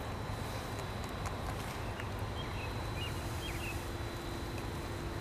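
Steady low outdoor background rumble with a few faint, short high chirps about two to three seconds in.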